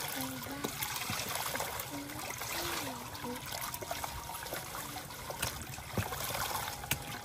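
Water trickling steadily, with light splashing as hands rub and rinse leafy vegetables in a plastic basin of water.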